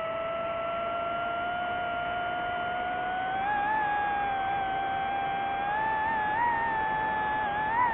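DJI FPV drone's motors and propellers whining at one steady pitch. The pitch creeps upward, steps up a few seconds in and wavers near the end as the throttle changes.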